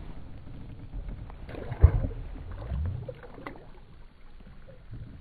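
A released scad (horse mackerel) hitting the sea with a short splash about two seconds in, over water slapping and lapping against a small boat's hull.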